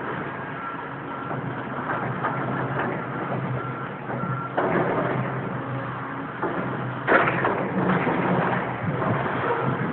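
Excavator's diesel engine running steadily while its bucket works a pile of demolition rubble, with crashing and scraping of broken brick and timber about halfway through and again about seven seconds in.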